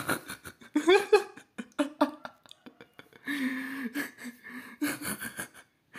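A person's voice in short broken bursts of laughter and non-word vocal sounds, with breathy gaps between.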